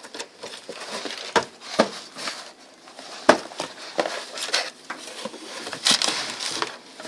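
A cardboard box being opened and its packing handled: irregular rustling and crinkling broken by sharp knocks and clicks, the sharpest a little over three seconds in.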